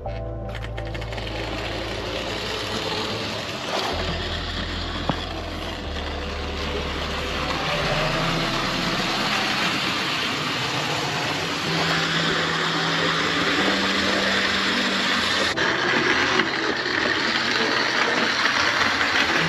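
Model diesel locomotive running on a layout with a rake of coaches behind it, a steady mechanical running noise of motor and wheels on track that grows louder as it nears.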